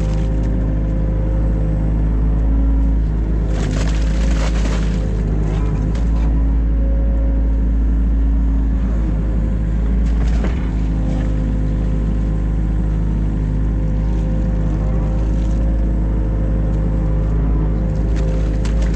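New Holland Kobelco E50.2 mini excavator's diesel engine running steadily under work, with brief rushes of noise about four seconds in and again near ten seconds as the machine digs.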